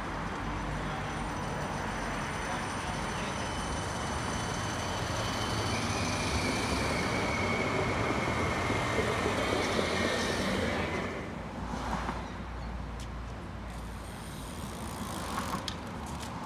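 CAF Urbos 3 light rail tram moving past close by: a steady rumble with a high whine from its electric drive, growing louder and then dropping away sharply about eleven seconds in, leaving quieter street ambience.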